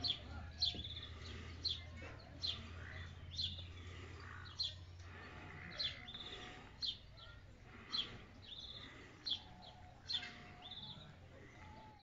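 A small bird calling over and over with a short, sharp, high chirp that drops in pitch, about once a second, over a low steady hum.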